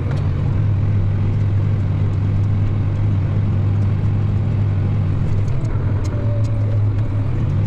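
Farm tractor engine running steadily under load, with a steady low drone, as it pulls a ripper through a field.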